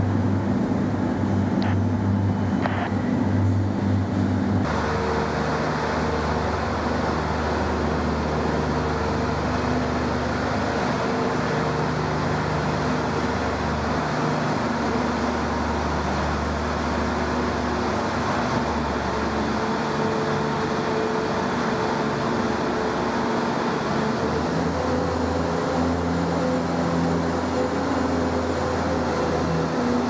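Heavy vehicle engine running steadily in a tunnel, a loud continuous drone whose pitch drifts slightly. The engine note changes abruptly about four and a half seconds in, and there are a couple of faint clicks before the change.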